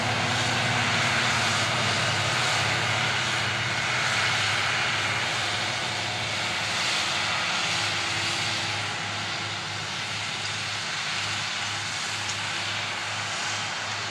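New Holland tractor's diesel engine running steadily under load as it pulls a seedbed cultivator through dry soil, a constant drone that eases off a little in the second half.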